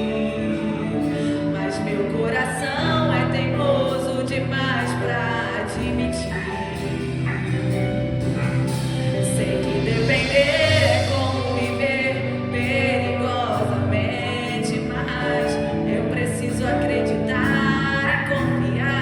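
Portuguese gospel worship song: voices singing over instrumental accompaniment, with long wavering sung notes.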